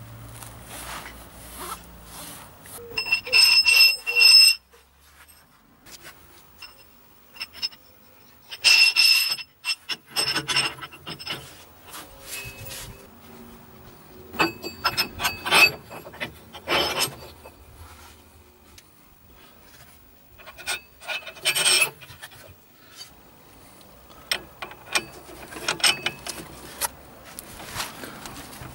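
Steel parts of a wheel bearing tool set being handled and fitted: clinks, scrapes and knocks of metal on metal, with several short ringing clangs, the loudest a few seconds in and again about nine seconds in.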